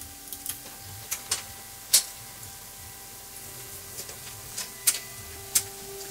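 Scattered sharp clicks and knocks of things being handled and set down, the loudest about two seconds in, over a steady electrical hum.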